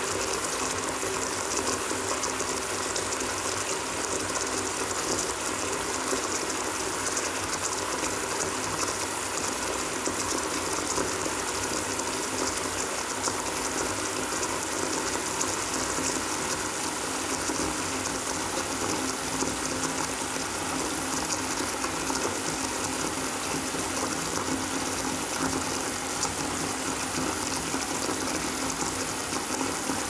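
Bathtub spout running a thin, steady stream of water that splashes onto the floor of a nearly empty tub.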